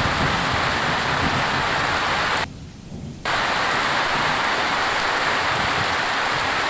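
Rain falling steadily, an even hiss. About two and a half seconds in it drops away abruptly for under a second, then comes straight back.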